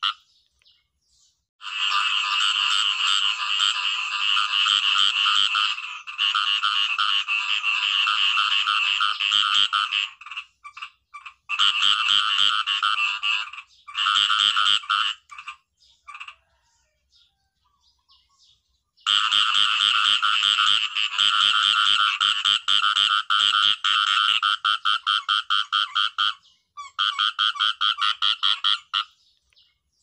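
Khiat i-mo frogs (เขียดอีโม้) calling: long trains of rapid, rattling pulses lasting a few seconds each, repeated in bouts. The calls pause for about three seconds past the middle.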